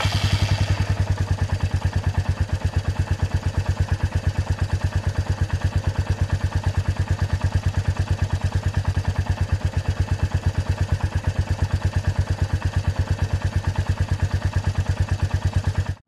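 Royal Enfield Meteor 350's single-cylinder exhaust idling with a steady, even beat.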